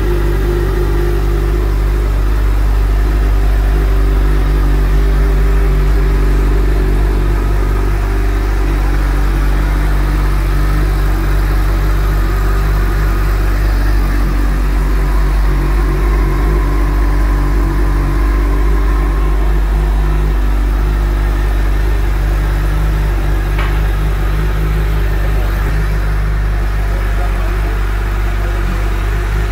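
2022 Suzuki Hayabusa's 1,340 cc inline-four engine idling steadily.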